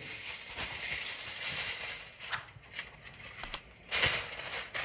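Aluminium foil crinkling and rustling as it is handled and wrapped around sandwiches, with a short lull about halfway through and a few sharp crackles.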